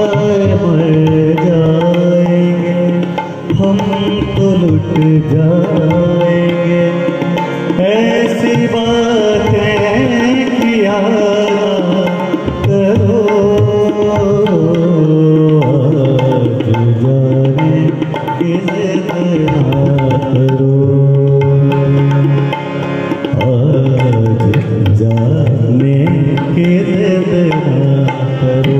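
Live ghazal music: tabla playing a steady accompaniment under a harmonium and a male voice singing long, gliding melodic phrases.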